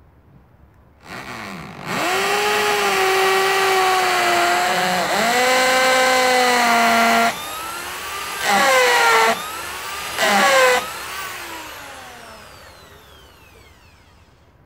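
Handheld electric saw whirring up to speed, its pitch dropping as it bites into a log, then released; two short trigger blips follow before the motor winds down with a falling whine.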